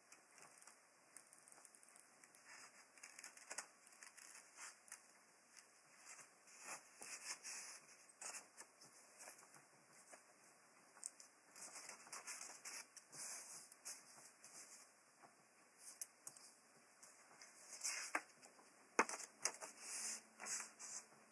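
Small pointed scissors snipping thin paper in faint, quick, irregular cuts, with the sheet rustling as it is turned. One sharper click near the end.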